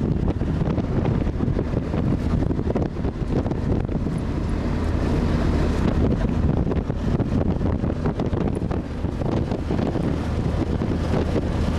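Steady engine and road rumble inside a passenger van's cabin, with wind buffeting the camcorder microphone.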